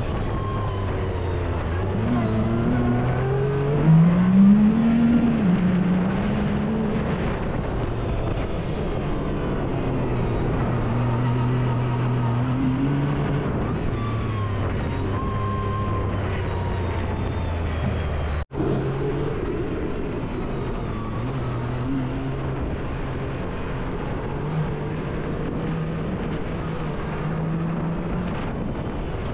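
Yamaha YXZ1000R side-by-side's three-cylinder engine revving up and down as it is driven on a dirt track, its pitch climbing sharply about four seconds in. The sound drops out for an instant about two-thirds through, and a similar engine note running through the gears follows.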